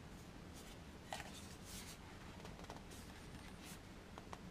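Faint handling noises of a Sabrent EC-UASP drive enclosure being forced open by hand: fingers rubbing and sliding on the case, with a light click about a second in and a few soft scrapes after.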